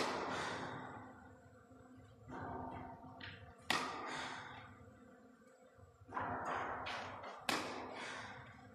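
Tennis racket striking the ball three times, about every four seconds, each crack ringing on in the reverberant indoor tennis hall.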